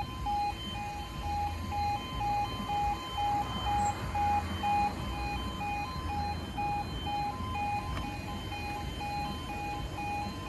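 Level crossing audible warning alarm sounding a steady, evenly pulsed electronic beeping tone while the barriers are down, warning of an approaching train.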